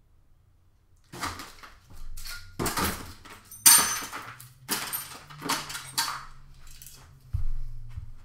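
Rummaging through parts by hand: a run of irregular clattering and rustling knocks, the loudest a sharp clink nearly four seconds in, with a low thump shortly before the end.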